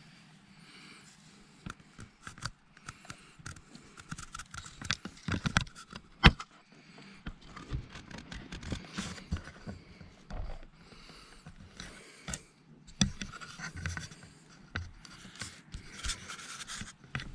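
Irregular rubbing and scratching right against the microphone, with sharp clicks scattered through it, the loudest about six seconds in: contact and handling noise on the ground-level camera.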